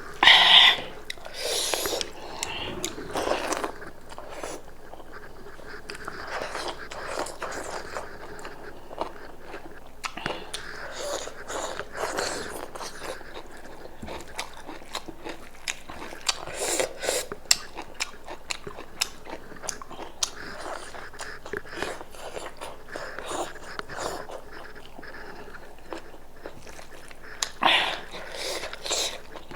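Close-miked eating of goat meat soup: chewing and biting with many small wet mouth clicks, and a few louder crunches or slurps near the start, in the middle and near the end.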